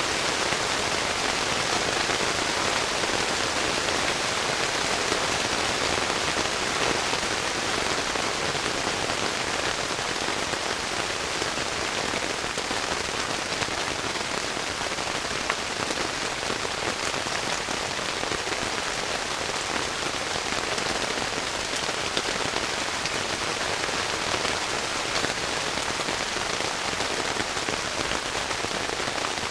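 Heavy rain falling steadily, an even hiss of dense drops with no let-up.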